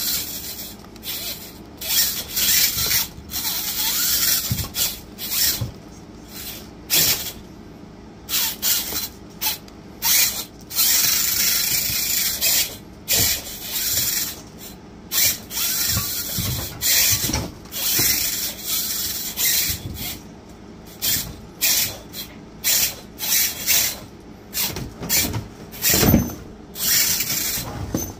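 Electric motor and gear train of an FMS FCX10-based RC rock crawler whirring in short, irregular throttle bursts with brief pauses between.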